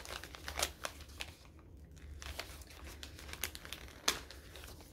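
A small paper bag being crinkled and opened by hand: irregular paper crackles and rustles, the sharpest about four seconds in.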